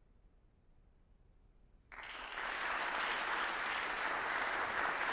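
Near silence, then an audience starts applauding about two seconds in, with steady clapping after that.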